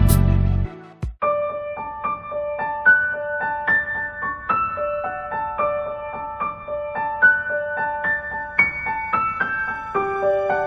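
Background music. A louder track with sharp beats cuts off about a second in, and a soft piano-like keyboard melody of single notes follows.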